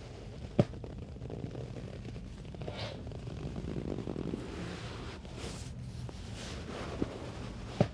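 Soft rubbing and rustling of hands working on a patient's back during a deep-tissue massage, with a sharp click about half a second in and another near the end.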